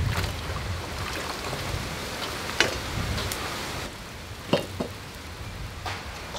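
Water dripping from freshly washed chilies and lettuce, with a few light clicks and taps as the wet vegetables are set down on a metal plate.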